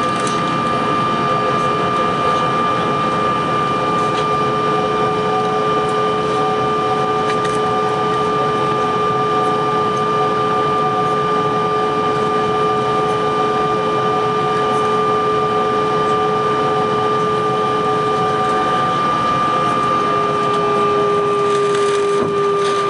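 Airbus A321 jet engines running at taxi power, heard inside the cabin over the wing: an even rushing hiss with several steady whining tones, one of which drops slightly in pitch near the end.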